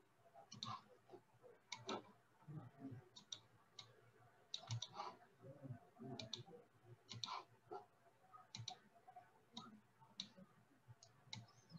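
Faint computer mouse clicks, irregular and scattered, a click or two a second.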